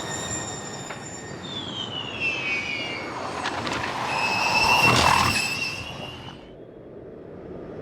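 Lola Yamaha ABT Formula E electric race car going past, its drivetrain giving a high, layered electric whine with tyre noise. The pitch glides down early on, the car is loudest about five seconds in, and then the whine fades out.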